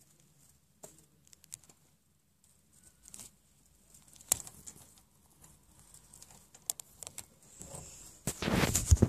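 Rustling and scattered small clicks in a pet mouse's cage with hay bedding, then a louder, longer rustling and scraping noise near the end.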